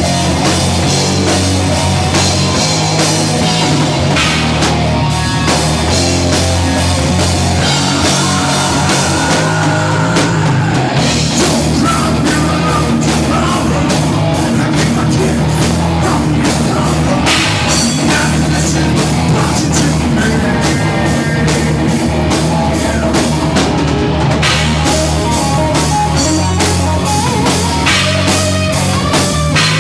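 Live heavy rock band playing loud, with distorted guitar, bass and fast, dense drumming on a drum kit.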